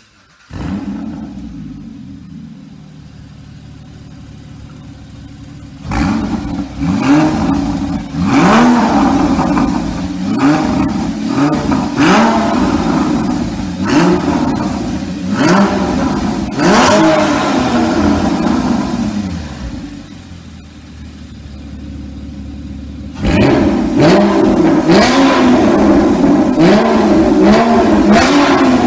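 Porsche Cayman GT4's 3.8-litre flat-six through EVOX ValveTronic stainless mufflers. The engine comes in about half a second in with a flare that settles to idle, then revs sharply again and again from about six seconds in with the exhaust valves closed. After a few seconds of idle, a quicker run of revs follows near the end with the valves open.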